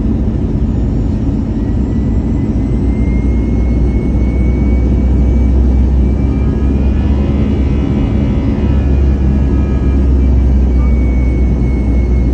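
Airbus A320 on approach: a steady low roar of engines and rushing air, with a thin high whine above it.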